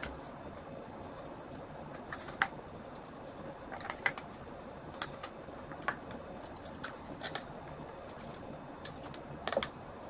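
Thin PET bottle plastic clicking and crackling as a utility knife trims it. The sharp clicks come irregularly, roughly one every second or so.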